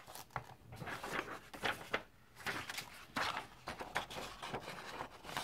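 Clear plastic being handled: a CD case and a sheet of clear stamps on their backing sheet, giving irregular clicks, taps and crinkling rustles.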